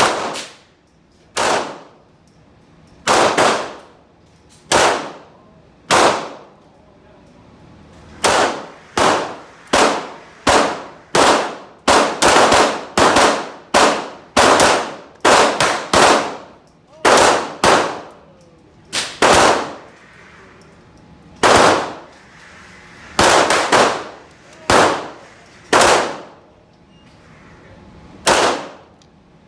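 Semi-automatic pistol shots fired in an indoor shooting range, each with a short echo off the range walls. About thirty shots: single shots a second or more apart, then a quicker string of about two a second in the middle, then spaced single shots again.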